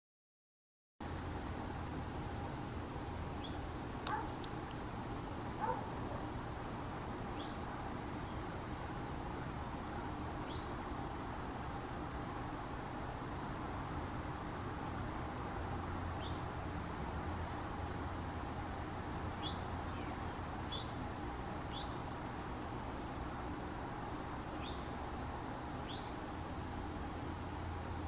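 Outdoor natural ambience starting about a second in: a steady high insect trill, with scattered short, high, falling bird chirps and two louder calls about four and six seconds in, over a low steady rumble.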